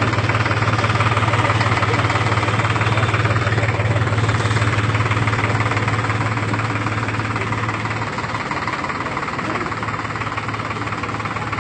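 Engine of a 1200 hp tractor running steadily with a strong low hum, easing off slightly about eight seconds in.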